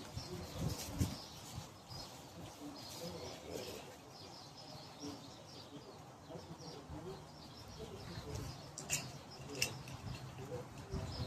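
Small birds chirping and tweeting, with soft rustling and a couple of sharp clicks about nine seconds in.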